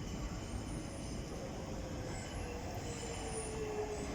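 Docklands Light Railway train pulling into the station: steady running noise with a motor whine that slides slowly down in pitch as the train slows.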